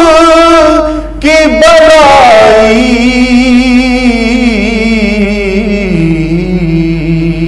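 A man singing a naat, an Urdu devotional poem in praise of the Prophet, unaccompanied. He holds long wavering melismatic notes; the voice dips briefly about a second in, then the melody moves down to a lower held line.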